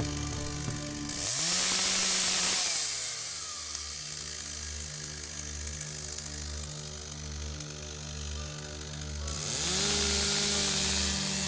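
Chainsaw revved up to full speed about a second in, falling back to a pulsing idle, then revved up again near the end.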